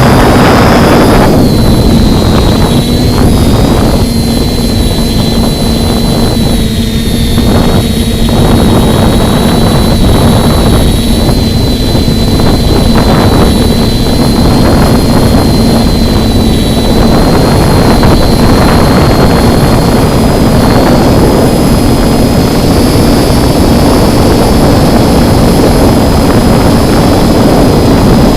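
Electric motors and propellers of a TBS Discovery Lite quadcopter running with a steady whine, almost drowned by heavy wind buffeting on the microphone that eases and returns in gusts.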